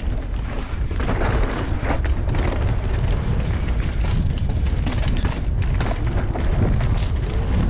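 Downhill mountain bike descending a rough dirt trail at speed: wind buffeting the rider's camera microphone as a heavy rumble, with the tyres and bike clattering and knocking over the bumps.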